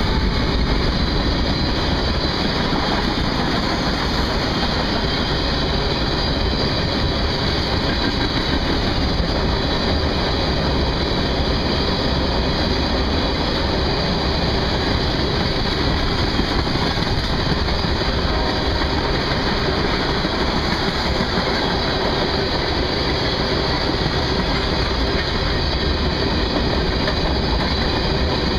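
A long CSX freight train of loaded tank cars rolling past at close range: the steady noise of steel wheels running over the rails, without a break.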